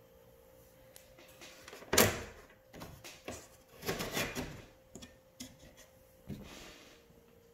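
Sliding cabin door of a scale RC AS350 helicopter model being worked by hand along its rail: a sharp knock about two seconds in, the loudest sound, then a longer scraping slide with scattered clicks and a short rub near the end.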